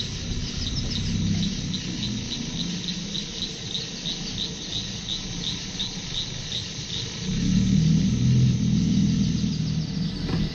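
Night insects chirping: an even series of short high chirps, about three a second, fading out about seven seconds in. Under them a low rumble grows louder over the last few seconds.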